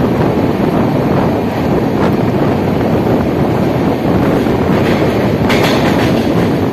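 Passenger train coaches rolling along the track, heard from the side of the moving coach with wind buffeting the microphone. There are a few wheel clicks over rail joints, most of them about five to six seconds in.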